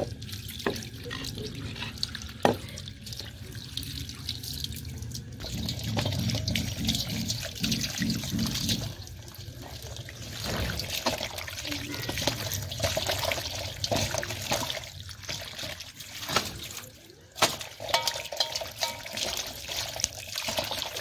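Water from a garden hose running and splashing into a stainless-steel colander while peeled potatoes are rubbed and rinsed by hand, with small knocks of the potatoes and hands against the metal.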